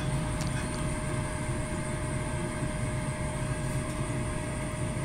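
King KP130 pellet stove's combustion blower and auger motors running steadily under power: a constant mechanical hum with a thin steady tone over it.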